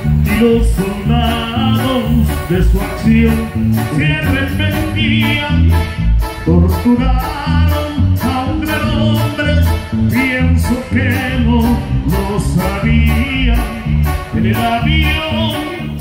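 Live Mexican banda music in an instrumental passage: trombones and other brass over keyboard and drums, with the bass pulsing in a steady beat.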